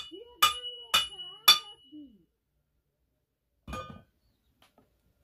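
Metal struck hard several times with a hammer: four sharp, ringing clangs about half a second apart, then one more about two seconds later.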